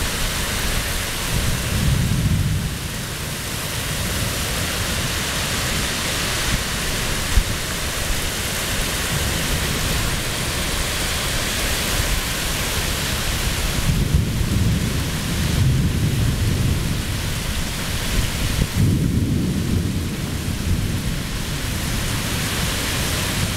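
Torrential rain pouring steadily in a severe thunderstorm, with deep low rumbles swelling up a few times and a single sharp crack about seven seconds in.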